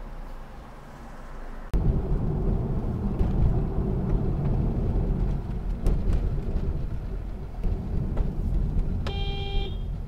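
Car driving, with steady engine and road rumble heard from inside the cabin; it cuts abruptly to a louder stretch of driving about two seconds in. Near the end comes a single short beep, about half a second long.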